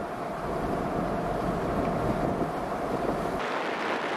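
Road noise inside a car at highway speed: a steady rumble and hiss of tyres and wind, with a faint steady hum. A little over three seconds in it switches abruptly to a lighter road noise without the low rumble.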